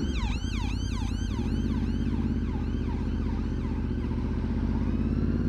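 Ambulance siren yelping in rapid falling sweeps, about three or four a second, fading away over the last seconds, over the steady running of the rider's motorcycle engine, whose note climbs slowly.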